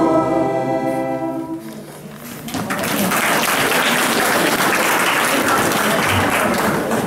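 A sung note held for about a second and a half, then fading away. About two and a half seconds in, applause from a room full of people breaks out and keeps going.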